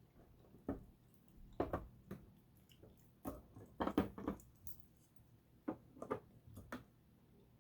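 Plastic LEGO pieces being handled and set down: a string of short, irregular clicks and clacks, with a small cluster of louder knocks about four seconds in.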